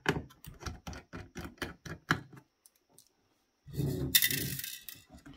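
Small screwdriver turning screws out of a router's heatsink: a quick run of light clicks, about four a second, for the first two seconds. About four seconds in, small metal screws rattle as they are dropped into an upturned plastic case half.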